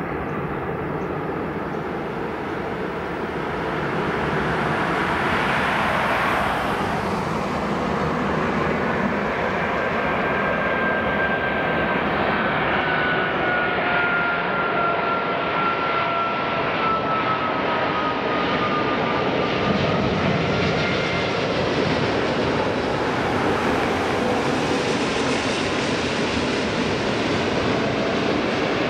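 Qantas Airbus A380-800's four Rolls-Royce Trent 900 turbofans running at approach power as the airliner flies in on final to land: a steady jet rumble with a thin whine that slowly falls in pitch.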